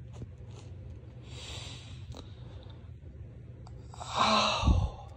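A person breathing out heavily in pain: a faint breath, then a loud sigh about four seconds in with a low thump as they shift on the bed.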